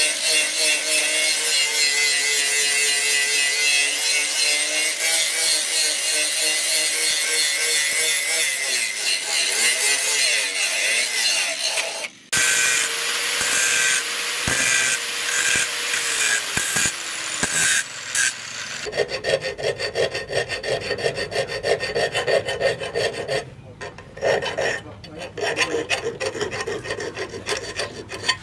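Angle grinder with a flap disc grinding a steel cleaver blade, the motor running with a steady whine under the grinding. About two-thirds of the way through it gives way to a thin round file rasping back and forth in a notch in the blade, in repeated strokes.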